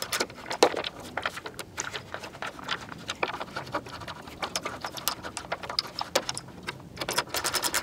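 Socket ratchet clicking in quick irregular runs as it drives in the screws that hold a lawn mower's air filter cover; the clicks come thickest near the end.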